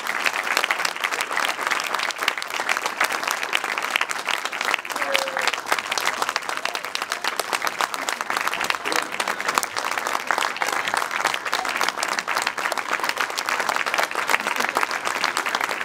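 Audience applauding steadily, a dense, unbroken patter of many hands clapping.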